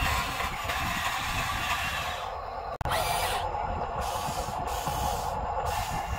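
Radio-controlled toy excavators working: a steady mechanical whirring with hiss. The sound cuts out briefly about three seconds in.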